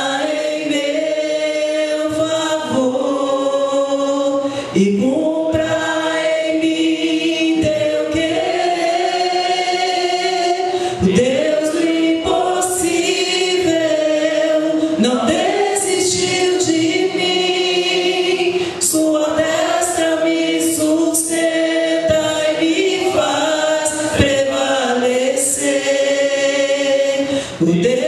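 A church congregation singing a slow worship song together in Portuguese, led by a woman singing into a microphone, with long held notes.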